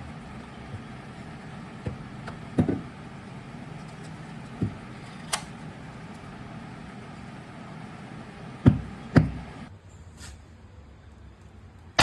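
Toy cork gun being handled and fired: a scattering of sharp clicks and pops, the loudest two about half a second apart a little before the end, over a steady background hum.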